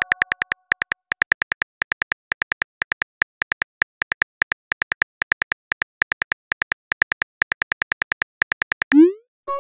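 Simulated phone-keyboard typing clicks, several a second in uneven bursts as a text message is typed out letter by letter. Near the end they stop and a short rising whoosh plays as the message is sent.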